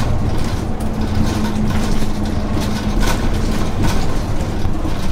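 Dennis Dart single-deck bus on the move, heard from inside the passenger saloon. The engine gives a steady drone with a low hum, under the rattle of the body, and a few sharp clicks come about three and four seconds in.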